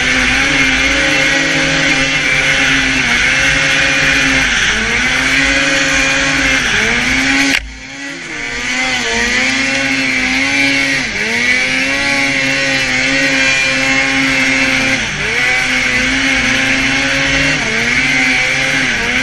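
2012 Arctic Cat M800 snowmobile's two-stroke twin engine with an aftermarket HPS can exhaust, running hard with the pitch dipping and rising again and again as the throttle is worked, over a steady loud hiss, heard from the rider's helmet. The sound breaks off sharply about eight seconds in and builds back up.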